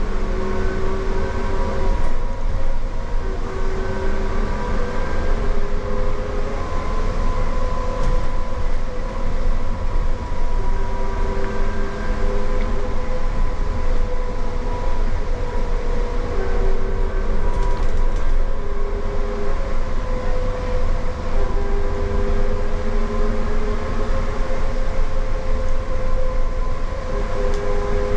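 Cabin noise of an electric trolleybus running through a tunnel: a steady low rumble under several held electric-motor whine tones that fade in and out.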